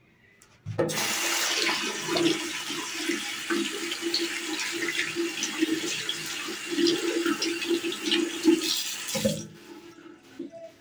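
Water rushing loudly in a bathroom, as from a toilet flush or a running tap. It starts suddenly about a second in and stops suddenly near the end.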